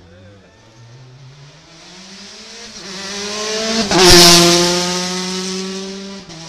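A rally car approaching at speed, its engine note climbing in pitch and loudness, passing close by about four seconds in with a rush of noise and a sudden drop in pitch, then fading as it drives away.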